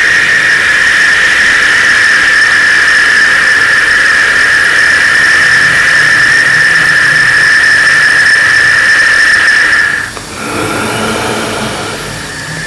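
A loud, steady, high-pitched whine that holds unbroken, with a fainter, thinner tone above it. About ten seconds in, it drops out for a couple of seconds of lower, rougher sound, then comes back.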